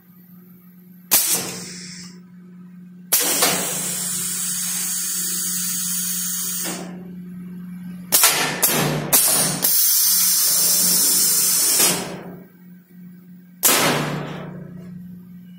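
Pneumatic cylinders on a steel-framed machine stroking with sharp metallic clanks, several times, each followed by air exhausting from the valves; twice the exhaust hisses for about three seconds. A steady low hum runs underneath.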